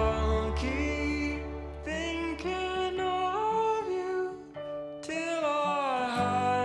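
Background music: a song with a singing voice carrying the melody over a low bass.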